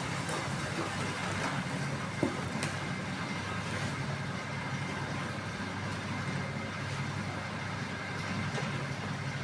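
Rotary die-cutting (cutting roll) machine for cardboard boxes running steadily: a continuous low machine hum with mechanical noise, and a couple of faint clicks a little over two seconds in.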